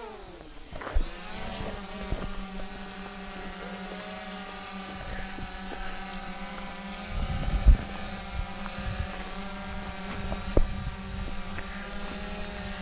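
Drone's propellers humming steadily as it hovers and climbs just after take-off, the pitch dropping in the first second and then holding level. A few low thumps and sharp clicks come through in the middle.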